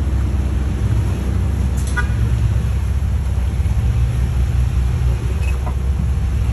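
Vehicle engine running steadily with a deep, low rumble.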